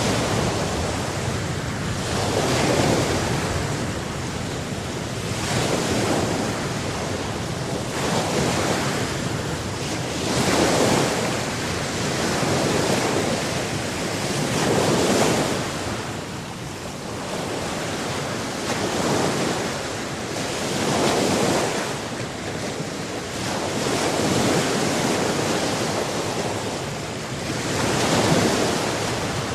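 Ocean waves breaking and washing on the shore, a continuous surf that swells and eases every two to three seconds, with some wind.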